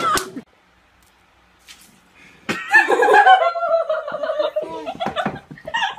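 A person giggling and snickering under their breath, starting after a second or two of near silence.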